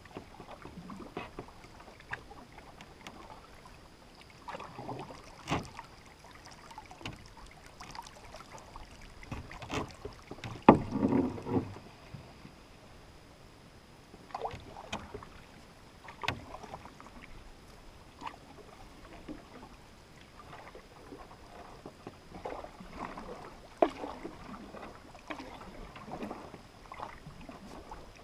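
Canoe paddle strokes in calm water: soft splashing and dripping every few seconds as the paddle dips and lifts, with a few sharp knocks, the loudest about eleven seconds in.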